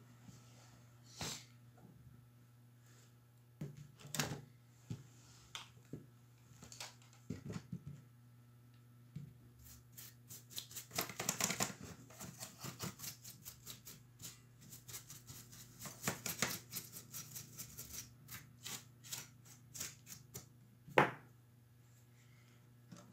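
A small paintbrush scraping and flicking over a laptop's plastic bottom case to brush out dust, in quick scratchy clicking strokes with a single sharp knock near the end, over a low steady hum.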